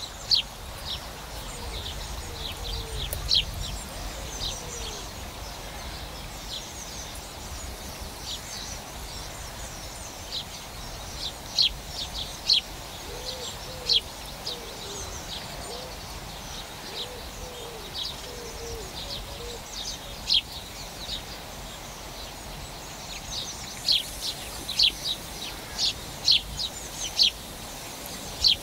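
Wild birds calling: many short, sharp high chirps scattered throughout, with a series of low, repeated calls in the middle, over a steady background hiss of outdoor ambience.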